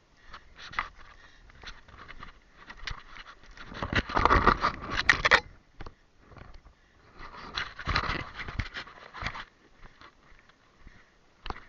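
Rustling and scraping close to the microphone, like clothing and foliage rubbing past it, in two longer bursts about four and eight seconds in, with scattered small clicks and crackles between.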